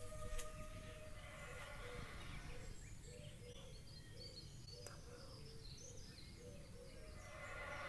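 Faint outdoor background with birds chirping and a short low note repeated a few times a second.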